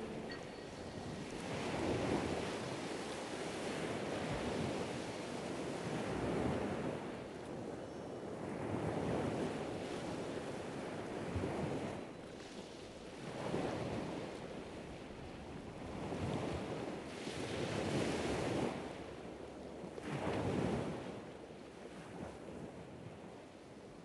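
Rushing noise that swells and ebbs every two to three seconds, fading out near the end.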